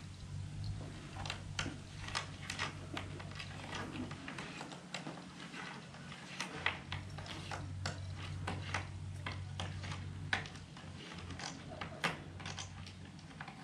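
A cat's claws scratching and catching on a weathered wooden sill as it stretches: an irregular run of dry clicks and scrapes.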